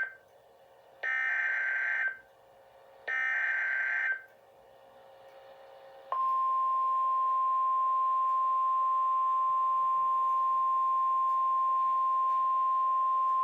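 Emergency Alert System SAME header data bursts: two short, harsh, buzzy bursts of about a second each, two seconds apart, the last of the three header repeats. About six seconds in, a long, steady, single-pitch alert attention tone starts.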